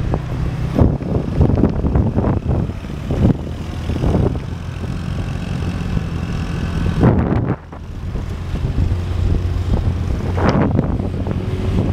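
Motorbike engine running at road speed, a steady low hum, with wind buffeting the microphone in uneven gusts.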